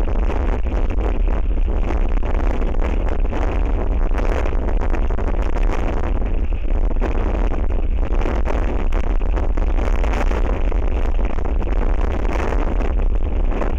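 Strong wind rumbling and buffeting across the microphone of an outdoor albatross nest camera, a loud steady low roar with no let-up.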